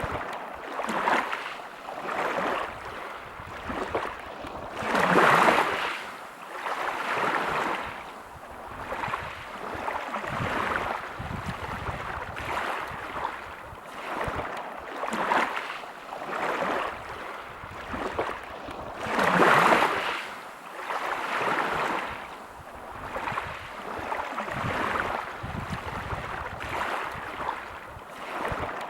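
Sea waves breaking on a pebble beach, washing in and out in swells every few seconds. Two breaks are louder than the rest, about five seconds in and about two-thirds of the way through.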